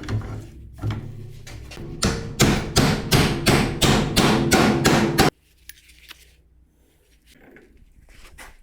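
Hammer striking metal in a steady run of about ten ringing blows, roughly three a second, stopping abruptly; a few lighter, scattered knocks come before and after.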